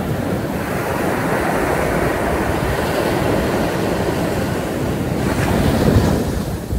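Small surf breaking and washing up a sandy shore: a steady rushing that swells and is loudest about six seconds in.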